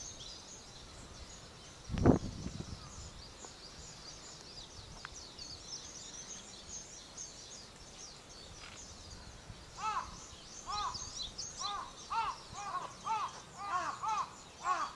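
Many small birds chirping high and continuously in a dawn chorus, with a crow cawing over and over in the second half. A single loud low thump comes about two seconds in.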